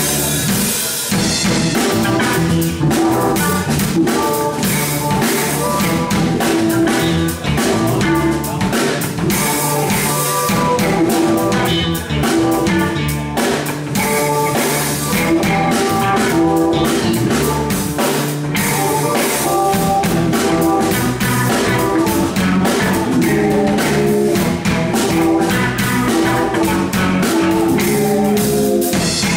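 Live funk-fusion band playing an instrumental: electric guitar, electric bass and keyboard over a busy drum kit with snare and cymbal hits.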